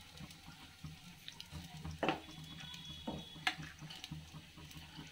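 Faint scrapes and a few light clinks of a steel spoon against an aluminium cooking pot as cooked rice is tipped and spooned in for another biryani layer, over a steady low hum.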